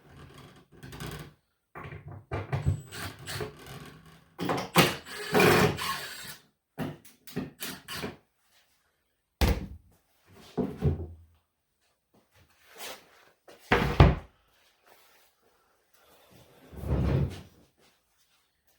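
Irregular wooden thunks, knocks and scraping from a wooden flip-top tool cart being handled and opened, with a couple of sharp knocks about halfway through and a dull thud near the end.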